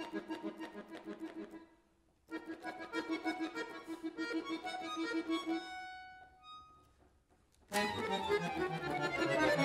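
Chromatic button accordion playing fast repeated staccato notes, with a short break about two seconds in. The line then thins to a few held high notes and fades almost to silence, before a loud, full passage of chords comes in near the end.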